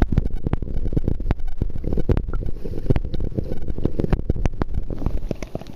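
Rain falling on a swimming pool, heard with the microphone at and under the water surface: a muffled, dense patter of many sharp drop ticks over a low rumble.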